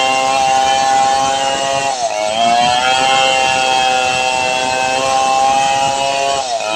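Large two-stroke chainsaw at full throttle, ripping lengthwise along a log. Its engine note dips briefly about two seconds in and again near the end, then picks back up.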